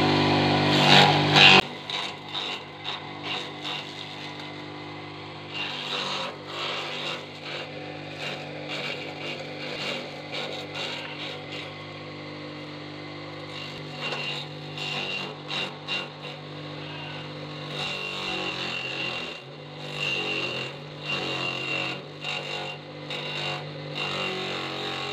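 Small electric grass chopper (forage cutter) running with a steady motor hum while leafy branches are hand-fed into its blades. The cutting makes irregular crackling clatter over the hum. The sound drops in level about a second and a half in.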